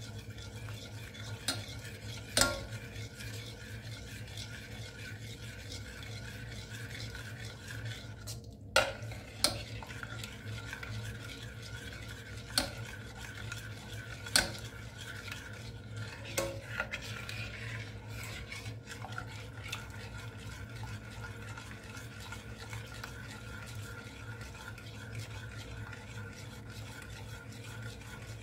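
A metal spoon stirs a thick, milky mixture in a metal saucepan with a continuous soft, wet scraping. A handful of sharp clinks ring out where the spoon knocks against the side of the pot.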